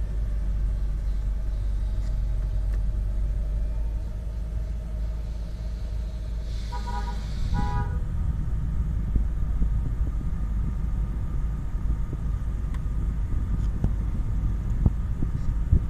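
Car engine idling with a steady low rumble, likely the Suzuki Splash running so its air conditioning can be tested. About seven seconds in, a vehicle horn gives two short toots.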